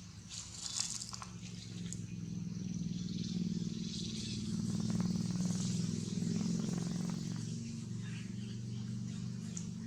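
A steady low motor hum, swelling and easing slightly, with scattered short high squeaks and clicks over it.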